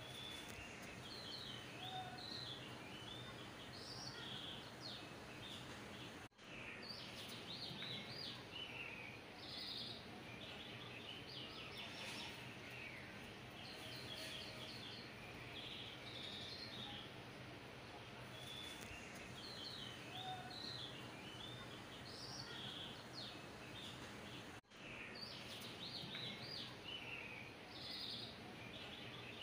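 Small birds chirping and twittering busily, faint, over a low steady hum. The sound cuts out for an instant about six seconds in and again near the end.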